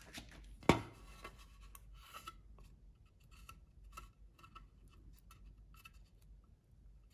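A wooden stir stick scraping and dabbing 5-minute epoxy across a wooden decoy section, a string of faint short scratches. One sharp knock about a second in is the loudest sound.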